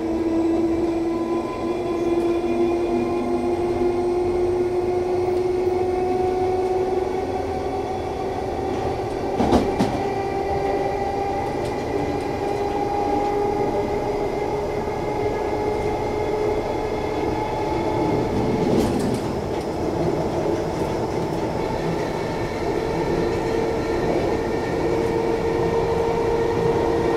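London Underground 1972 Stock train running between stations, its traction motors whining steadily in several tones that climb slowly in pitch as it gathers speed. Two brief knocks come over the wheels, about ten and nineteen seconds in.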